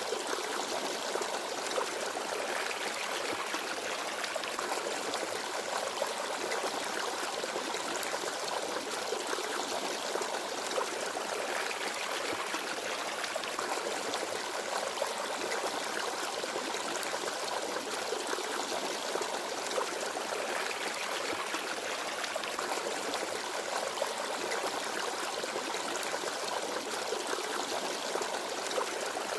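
Small forest stream babbling and trickling steadily over rocks.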